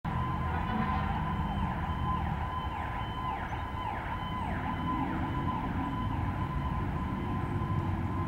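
Fire engine siren sounding as the truck approaches: a steady high tone with repeated quick falling sweeps over it, and a low rumble underneath.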